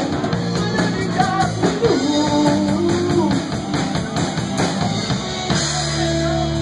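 Live rock band playing with a singer, drum kit and electric guitar. About five and a half seconds in, the singing and drumming stop and a held chord rings on.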